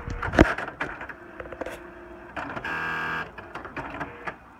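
Electronic typewriter running its start-up routine just after being switched on: a sharp clack about half a second in and scattered mechanical clicks, then a steady motor whir lasting under a second, about three seconds in.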